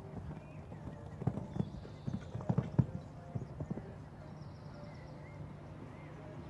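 Hoofbeats of a horse cantering on a sand arena: a run of dull thuds starting about a second in, loudest near the middle, dying away around four seconds in.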